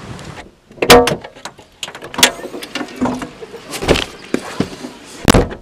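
Several sharp knocks and bangs spread over a few seconds, the loudest about a second in and again near the end, as a car is loaded and its doors and hatch are shut.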